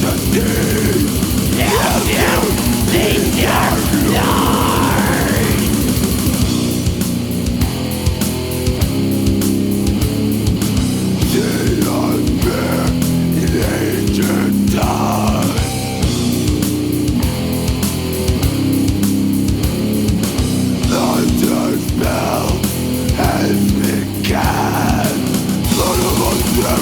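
Death metal band playing: distorted guitar riffs over fast, dense drumming, with a few swooping high guitar or vocal glides.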